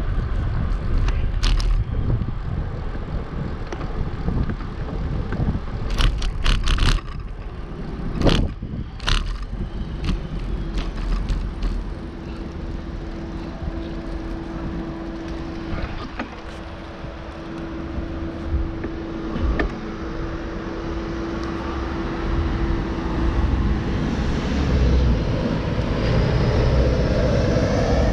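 Riding a bicycle in city traffic: constant low wind rumble on the microphone with passing motor traffic. A cluster of sharp clicks and knocks comes about six to nine seconds in, a steady hum runs through the middle, and the noise swells near the end.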